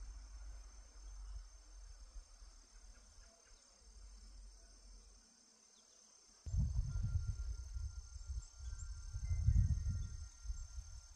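A steady, high-pitched drone of insects. About halfway through, gusts of wind start rumbling on the microphone, and a tubular wind chime rings faintly with a few long, held tones.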